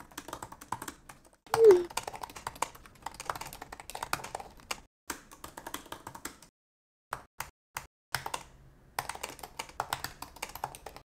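Typing on a MacBook Pro laptop keyboard: a run of quick key clicks on the 16-inch model's scissor-switch keyboard, then, after a pause of about a second and a half, more clicks on the 15-inch model's butterfly keyboard. A short pitched blip sounds about two seconds in.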